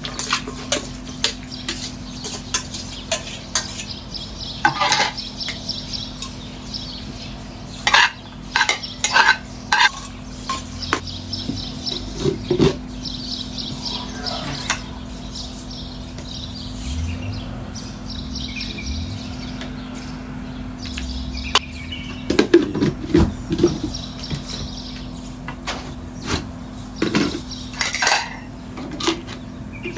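Metal spoons and dishes clinking and knocking against a stainless steel mixing bowl as pasta salad ingredients are tipped in and stirred, in scattered sharp clinks with quick clusters of them, over a steady low hum.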